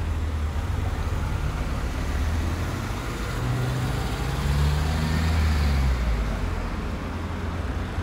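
Street traffic with a steady low hum. A motor vehicle's engine passes close between about three and six seconds in, where the sound is loudest.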